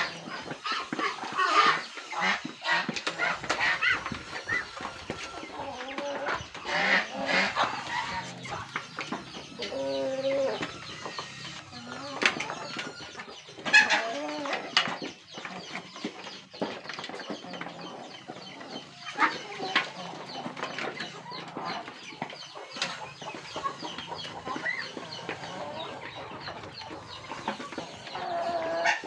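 Chickens clucking continuously as a flock feeds from a bowl, with frequent sharp taps and clicks of beaks pecking at the feed.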